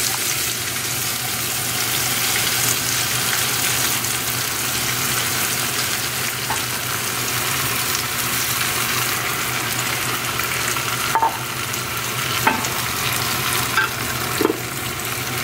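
Tomato slices sizzling in hot oil in a frying pan, with egg dumplings added and stirred in with a spatula. There are a few short knocks near the end.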